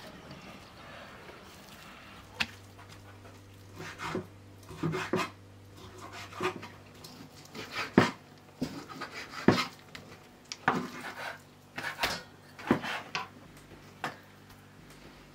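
Large kitchen knife cutting raw pork into chunks on a wooden cutting board: irregular sharp knocks as the blade strikes the board, with short wet scraping of the meat, about a dozen strokes.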